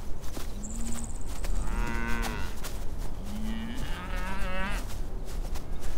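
Cattle mooing: about four calls from the herd, one after another, some short and low, others longer with the pitch bending up and down.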